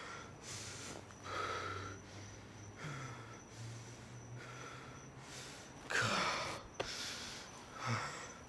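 A person breathing heavily, short ragged breaths in and out about once a second, the strongest about six seconds in, with one sharp click shortly after.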